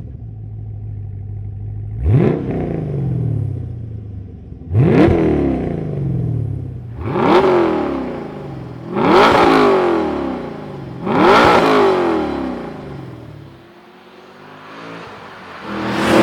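LS7 V8 in a 2013 Camaro SS running through a Hooker Blackheart 3-inch stainless exhaust: idling, then revved five times in quick blips about two seconds apart, each rising sharply and falling back to idle. The engine sound drops lower near the end.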